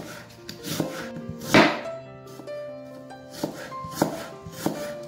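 Kitchen knife slicing an onion, its blade striking the cutting board in about five separate, unevenly spaced chops, the loudest about a second and a half in. Background music plays underneath.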